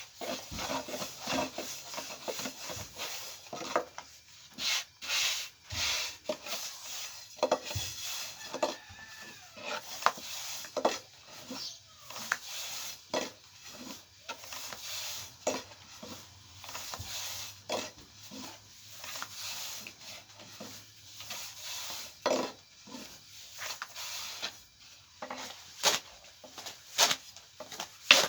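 Hand work on bread dough and kitchen utensils: irregular rubbing and scraping with many light knocks and clicks.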